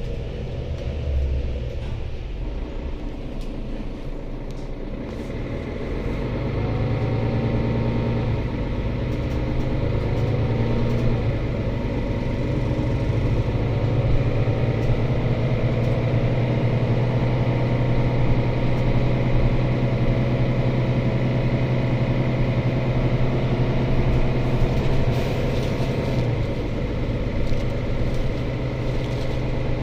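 Mercedes-Benz O530 Citaro C2 city bus heard from inside the passenger cabin while under way, with its engine and drivetrain running steadily. The engine hum grows louder about six seconds in, and a faint high steady whine comes in at the same time.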